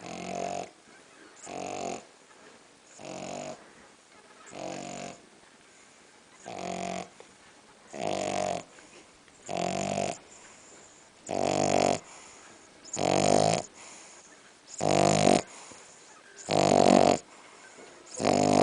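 French bulldog snoring in a steady rhythm, one snore about every second and a half to two seconds. The snores grow louder toward the end.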